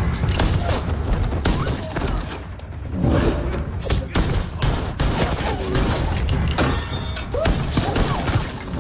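Action-film fight soundtrack: a rapid series of gunshot and hit sound effects, over background score music.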